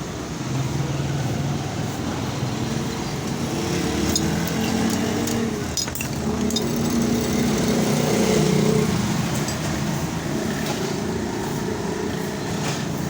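Motor vehicle engines running nearby, with a steady traffic drone whose pitch rises and falls as vehicles pass. A few sharp clicks about halfway through.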